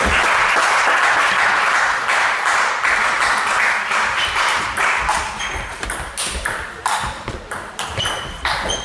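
Table tennis rally: a celluloid ball clicking rapidly back and forth between the rubber bats and the table, many sharp pings in an irregular rhythm, over a steady hiss that eases off about halfway through.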